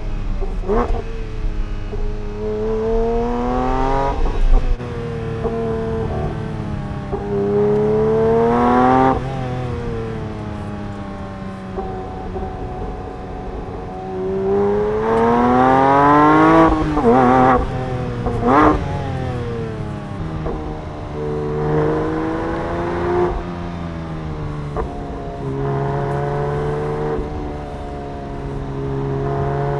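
Porsche 911 GT3 S/C's 4.0-litre naturally aspirated flat-six engine and exhaust revving again and again. The pitch climbs and drops several times, with a few quick sharp throttle blips and steadier, lower running in the second half.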